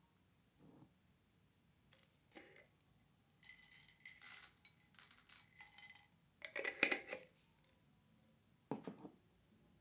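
Small hard candies poured from a glass jar into a ceramic bowl, rattling and clicking against the glass and the bowl in a run of bursts lasting about four seconds. A few light knocks come before it, and a single duller knock near the end.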